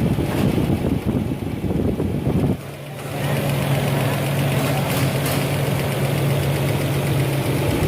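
Nissan Patrol running: a rough rumble with wind on the microphone, then, about two and a half seconds in, an abrupt change to a steady low engine hum at idle.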